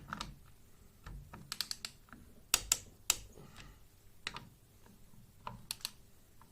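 Irregular sharp metallic clicks and clinks of hand tools, a torque wrench and ratchet worked on the scooter's rear axle cover bolts, coming in small bunches with the loudest pair about halfway through.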